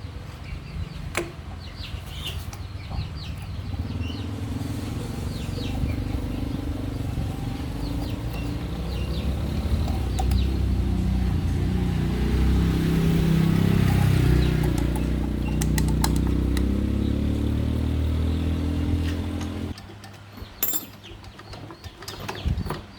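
Yamaha Sirius single-cylinder four-stroke motorcycle engine running, getting louder and higher toward the middle, then cutting off suddenly about 20 seconds in. Birds chirp faintly throughout.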